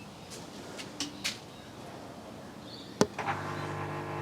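A sharp click about three seconds in, then the Samsung front-load washing machine's drain pump starts up with a steady electric hum.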